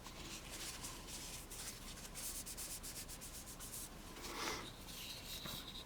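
Faint, quick rubbing strokes of the carbon steel blade of a folding knife being wiped clean, to be oiled against rust.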